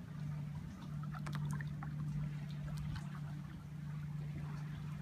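A steady low drone runs throughout. Over it, shallow water trickles and laps around a kayak hull and wading legs, with scattered small clicks and rustles as gear on the kayak is handled, busiest from about one to three seconds in.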